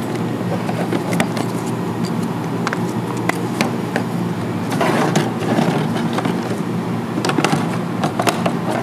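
Clicks and knocks of a tool case being opened and a digital micrometer being handled, over a steady low hum.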